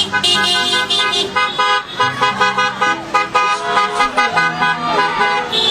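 Car horns honking over and over in passing traffic, several horns of different pitches overlapping and starting and stopping throughout: drivers honking in answer to a roadside request to honk.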